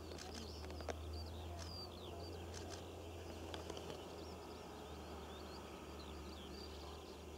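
Small birds singing, a string of short quick chirps and trills that runs on throughout, over a steady low hum.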